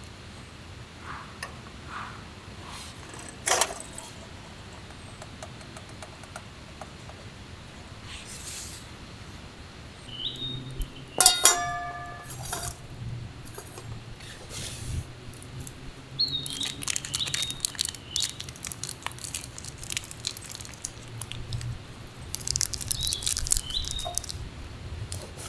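Metal camp cookware being handled: scattered clicks and rattling, and one sharp metal clink that rings briefly midway. A bird chirps briefly three times in the background.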